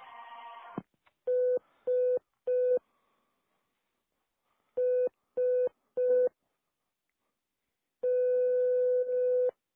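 Telephone line tones over a phone call while the caller waits to be put through to the operator. A single steady mid-pitched beep sounds three times in quick succession, then three times again after a pause, and then once as a long tone of about a second and a half.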